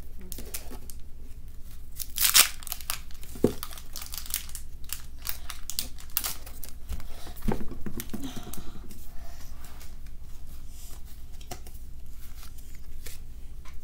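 Foil wrapper of a Pokémon card booster pack being torn open and crinkled by hand, a run of crackles and rips with the loudest a little over two seconds in.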